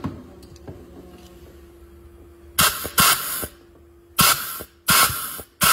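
Several short blasts of compressed shop air, at about 60 psi, from an air nozzle held to the feed hole of a 4L80E clutch drum, beginning about two and a half seconds in. This is an air check of the clutch piston: it applies, with a little air leaking around the input shaft. A single knock sounds right at the start.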